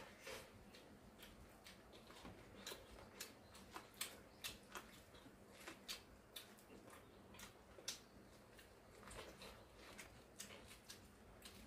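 Faint, irregular soft clicks of steamed corn on the cob being eaten, as kernels are bitten off the cob and chewed.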